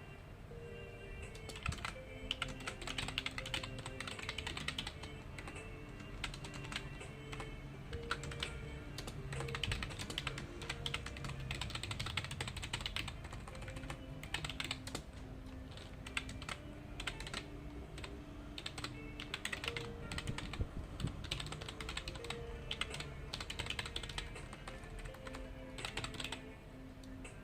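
Computer keyboard typing: runs of rapid keystroke clicks with short pauses between, over soft background music of held notes.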